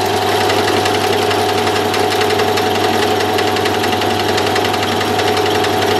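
Milling machine spindle running with a freshly hand-reground end mill side-cutting aluminium on its flutes: a steady motor hum under a fast, even chatter of the cut.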